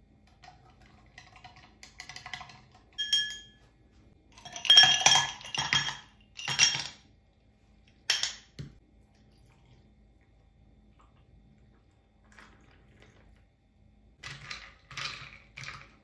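Ice cubes clattering into a tall drinking glass of coffee, a loud run of rattling, ringing clinks around five to seven seconds in. Lighter clinks of a straw and ice against the glass come before it and again near the end as the drink is stirred.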